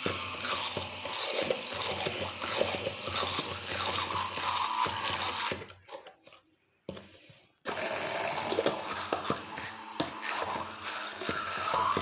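Egg and powdered-sugar cake batter being beaten by hand in a bowl, the whisk clicking and scraping against the bowl in a quick, uneven rhythm. The sound cuts out for about two seconds just past the middle.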